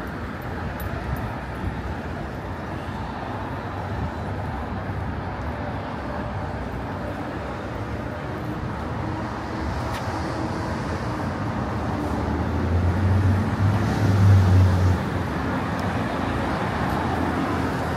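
Steady street traffic noise on a busy city boulevard. About two-thirds of the way through, a passing vehicle's low engine rumble swells to the loudest point and then fades back.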